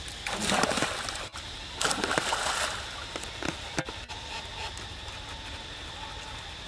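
Two short bursts of splashing water, about a second apart, from monkeys swimming.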